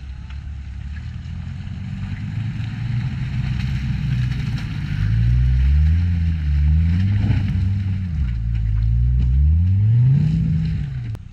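Land Rover 4x4 engine working off-road: a steady low rumble, then from about halfway the revs rise and fall several times, loudest in the second half, before the sound cuts off suddenly near the end.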